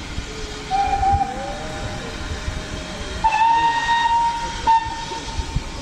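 Steam locomotive's whistle: a short blast about a second in, then a longer blast starting a little after three seconds in.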